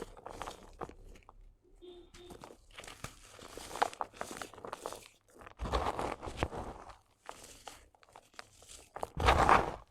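Gritty sand cement crumbling and crunching in irregular crackly bursts, the loudest about six seconds in and near the end.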